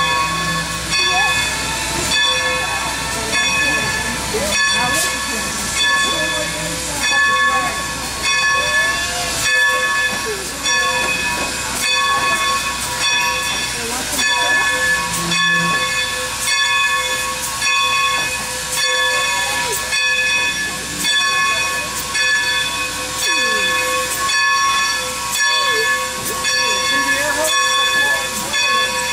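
Steam locomotive hissing steam as it moves slowly tender-first, with a steady high-pitched whine held throughout and frequent short clicks and clanks.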